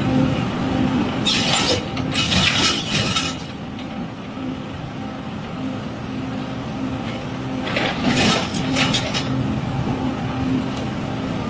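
Excavator's diesel engine running steadily, with two louder spells of rushing noise as it works: one about a second in lasting about two seconds, another about eight seconds in.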